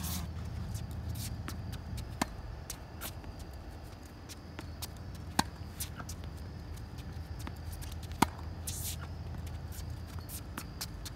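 Tennis racket striking the ball on backhand groundstrokes: three sharp hits about three seconds apart, with lighter scuffs and taps of footwork on the hard court between them over a steady low hum.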